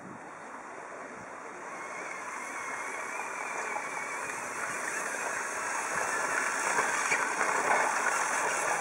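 Radio-controlled pulling tractor making a run down the track under load: a steady hiss-like motor whine that grows gradually louder.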